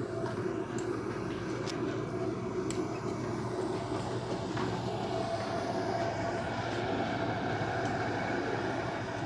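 A steady mechanical hum and rumble with a faint constant whine above it, and a few light clicks.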